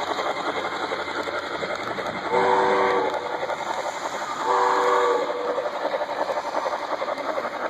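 Model railway passenger cars rolling past with a fast, steady clicking of wheels on the track. Twice, about two and a half and four and a half seconds in, a short, several-toned steam locomotive whistle blast sounds from a sound-equipped model locomotive.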